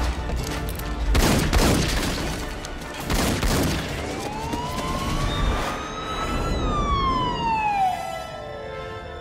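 Action-film soundtrack: a tense score with heavy impact hits in the first few seconds. Then a siren-like wail rises slowly for a couple of seconds and falls away toward the end.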